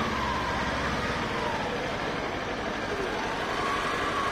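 Kawasaki Ninja 400 parallel-twin engine idling in slow, congested street traffic, with a steady low rumble of surrounding vehicles. A thin tone slowly rises and falls above it.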